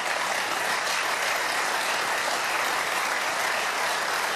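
Members of parliament applauding: steady clapping from a large seated crowd of deputies.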